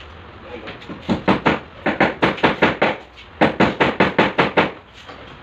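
Hammering: three quick runs of sharp blows, about five a second.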